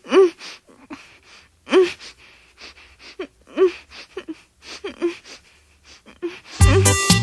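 Short sampled gasping vocal cries, each with a quick upward pitch swoop, repeating about every one and a half to two seconds with small squeaks and clicks between them. Near the end, loud music with a heavy bass line comes in.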